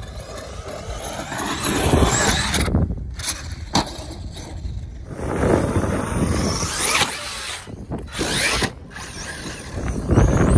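Electric radio-controlled trucks driving hard on sand: motor and drivetrain whine rising in pitch as they accelerate, over a low rumble, broken by several abrupt cuts.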